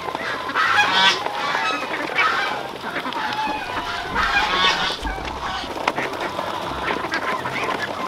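A large flock of domestic ducks calling all at once while crowding around feed, many voices overlapping, with louder bursts about a second in and again around four seconds.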